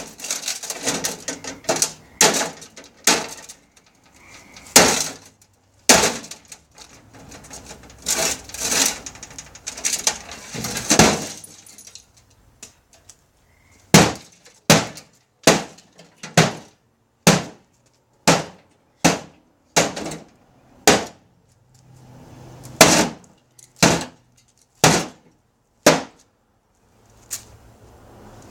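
Hammer repeatedly smashing a microwave, with glass and casing parts cracking and crunching. The blows come irregularly with breaking debris between them at first, then settle into steady strikes about once a second after a short pause.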